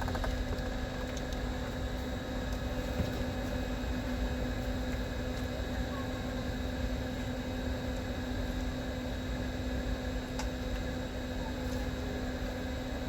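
Steady hum of a car idling, heard from inside the cabin, with a constant low drone and a few faint clicks.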